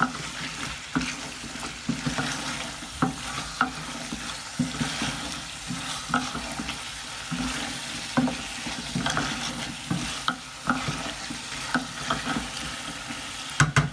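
Wooden spoon stirring potato chunks and cauliflower leaves in an aluminium pot, with irregular scrapes and knocks against the metal over a steady sizzle of frying. A quick run of sharp knocks comes near the end.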